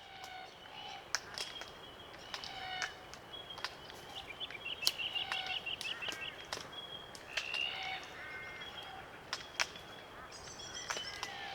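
A small flock of glossy black cockatoos feeding on Allocasuarina cones: many sharp clicks from the birds cracking the cones, mixed with short creaking calls and a quick rattling call about five seconds in.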